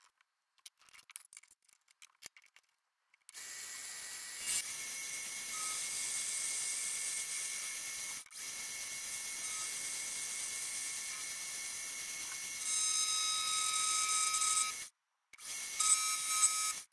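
Paulimot mini lathe running as a carbide insert turns a small steel screw head: a steady motor hum with several high steady tones, joined by further high tones about thirteen seconds in. A few faint clicks come first, before the machine starts.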